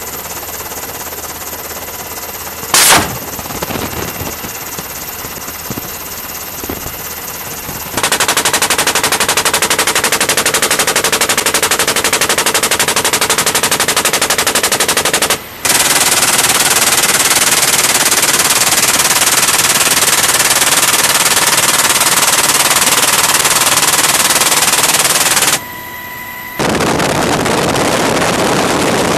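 A machine gun mounted on an SH-60 Seahawk helicopter, heard from inside the helicopter: a single loud bang about three seconds in, then two long sustained bursts of automatic fire with a short break between them. Near the end the firing stops and the helicopter's steady running noise fills the cabin.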